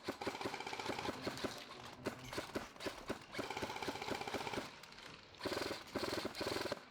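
Airsoft electric rifles firing on full auto: rapid, evenly spaced shots in several bursts with short gaps, the gearbox whining underneath.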